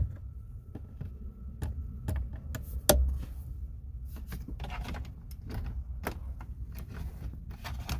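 Plastic clicks and knocks from a car heater's air-direction linkage (heater main link and mode lever) being worked by hand, with a louder knock about three seconds in over a low handling rumble. The lever has just been re-hooked onto its pin and the linkage moves freely.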